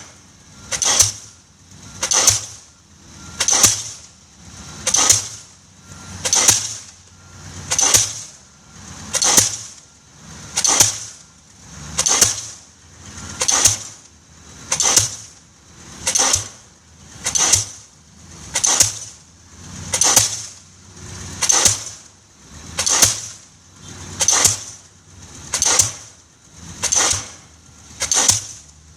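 Diesel pile hammer driving a concrete pile, striking in a steady rhythm of about one blow every second and a half.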